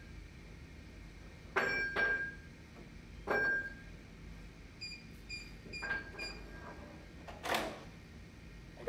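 Metal lever handle of a locked door clacking three times with a ringing click, then an electronic keypad door lock giving a quick string of short beeps as a code is punched in, and a longer rush of sound near the end as the door opens.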